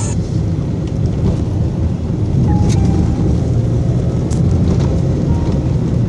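Steady low rumble of a vehicle driving along a road, heard from inside the cabin, with a couple of brief rattles.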